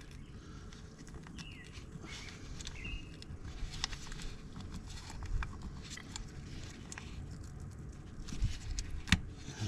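A plastic motor-oil jug being handled and its cap worked open, with scattered small clicks, a few short squeaks and occasional dull knocks.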